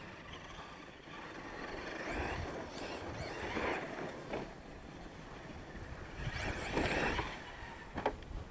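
Losi LST XXL radio-controlled monster truck revving in several bursts, each rising and falling in pitch, as it drives over dirt, with a sharp knock near the end.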